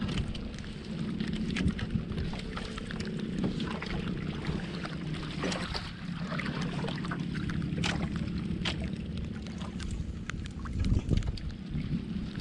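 Steady low hum of a motorized outrigger fishing boat's engine idling, under wind and water washing against the hull. Scattered sharp clicks and knocks come from the longline being hauled aboard by hand.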